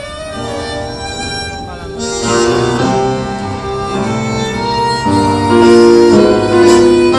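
Live tango ensemble playing, with bandoneon, violin, piano and guitar. The music is softer for the first two seconds, then swells fuller and louder.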